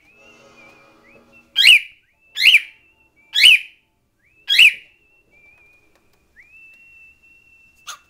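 Male cockatiel giving four loud, sharp calls, each sweeping down in pitch, between softer warbling whistles, then holding one long steady whistle near the end.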